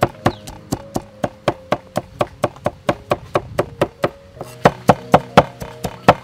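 Cleaver chopping rapidly on a wooden chopping board, steady knocks about four a second, with a few harder strikes a little past the middle.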